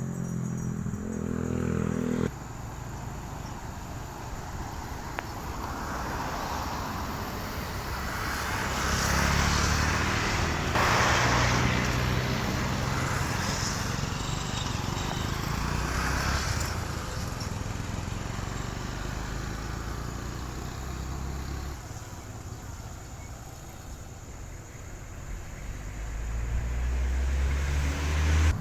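Motor vehicle engines running and passing on a road, their noise swelling and fading several times, with a low rumble building near the end. A short bit of music ends about two seconds in.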